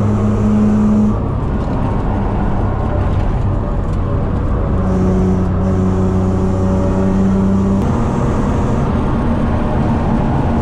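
In-cabin sound of a BMW E36 323i's 2.5-litre straight-six engine pulling under load on a track lap, with tyre and road noise throughout. The engine note falls away about a second in, comes back around five seconds, and changes again near eight seconds.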